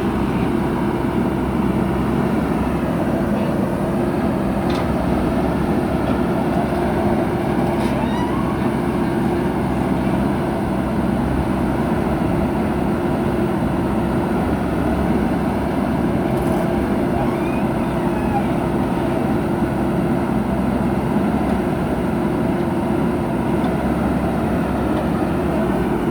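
Diesel engine of heavy earthmoving machinery running steadily under work, a constant, even drone with a few faint clanks.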